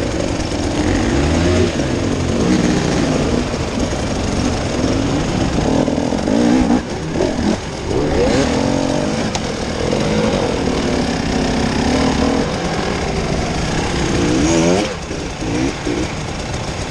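Off-road vehicle engine revving under load, its pitch rising and falling again and again over a rough, rattling running noise.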